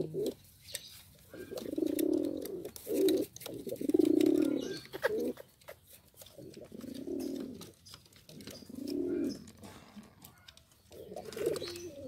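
Domestic pigeons cooing: about six low, rolling coos, each a second or less, with short gaps between, and light clicks and taps among them.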